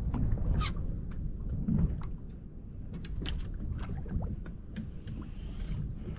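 Steady low rumble of wind and water around a small fishing boat at sea, with scattered sharp clicks and taps and a single louder thump about two seconds in.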